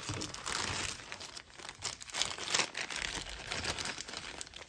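Small clear plastic zip-top bag crinkling as it is pulled open and handled, in irregular bursts.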